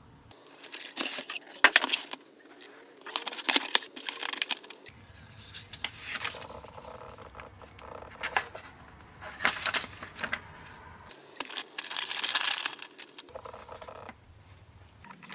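Packaging being handled and opened, crinkling and tearing in a string of short, loud bursts.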